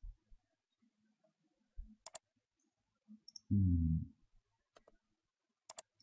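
Computer mouse clicks: a quick double click about two seconds in, a single click near five seconds and another double click near the end. A short low hum about three and a half seconds in is the loudest sound.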